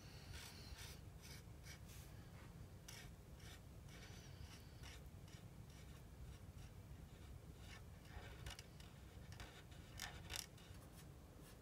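Faint scratching of an alcohol marker's felt tip on paper in short, irregular strokes, over a low steady hum.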